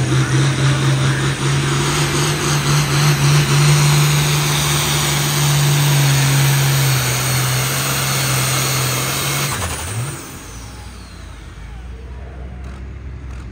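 Pulling tractor's diesel engine running flat out under load as it drags the sled down the track. About ten seconds in the revs drop off sharply as the pull ends, leaving a lower, quieter idle.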